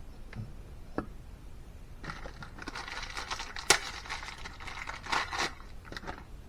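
Scraping and crinkling hand-work noise on engine cylinder-head parts, with a few sharp clicks, the loudest about two-thirds of the way through.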